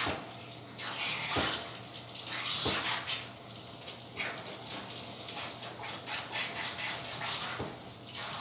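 Water hissing from a hand-held grooming-tub sprayer as it rinses a standard poodle's wet coat, swelling and fading as the spray moves over the dog. A few short knocks come through, the first at the start and two more in the first three seconds.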